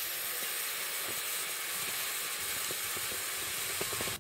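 A steady high hiss with a few faint ticks underneath, cutting off abruptly at the end.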